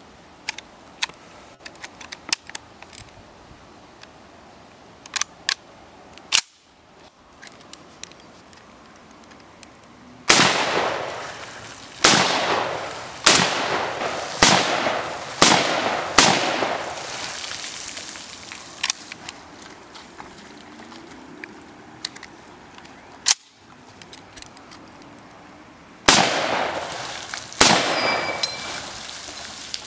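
M1 Garand rifle being loaded with an en bloc clip: a few light metallic clicks, then a sharp clack as the bolt closes. The rifle then fires eight shots, each trailing off in an echo: six in quick succession, then two more near the end. The last shot is followed by a brief ringing ping as the empty en bloc clip is ejected.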